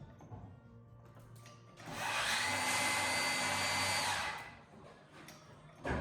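A power tool's motor runs steadily for about two seconds with a high whine, starting about two seconds in and winding down before the end.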